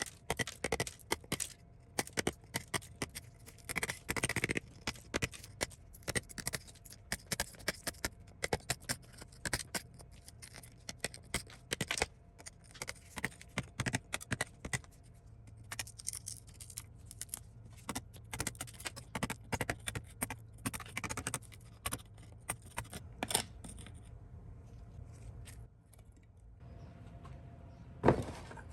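Small metal parts of a rusted Colt Model 1908 pocket pistol being handled, with repeated clicks, taps and short scrapes. It quietens after about 24 seconds, then one sharp knock comes just before the end.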